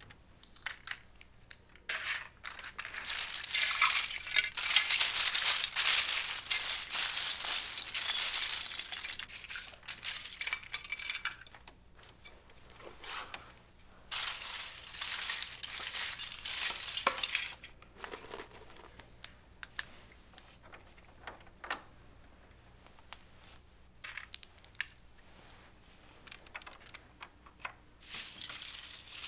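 Plastic Lego bricks clattering and clicking as hands rummage through a pile of pieces, in long bursts of dense rattling with quieter spells between.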